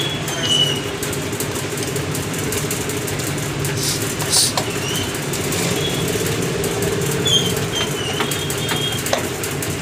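A steady low machine hum runs throughout. Over it come a few light metal clicks and short high squeaks from a wrench working the crankcase bolts of a motorcycle engine; the clearest clicks come about four seconds in.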